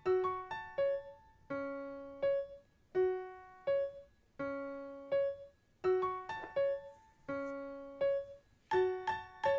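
Background music: a slow piano melody of separate struck notes, each ringing and fading before the next.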